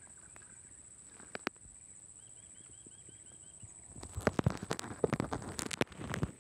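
A bird gives a short run of about eight quick repeated chirps over a steady high-pitched hum. From about four seconds in, a louder, rapid, irregular clatter of close knocks and taps starts and takes over.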